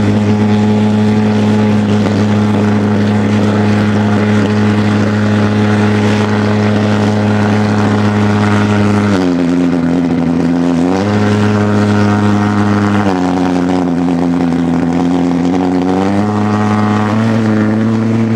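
Model pulse-jet engine running on the ground: a loud, steady buzzing drone whose pitch steps up and back down a couple of times, then rises near the end.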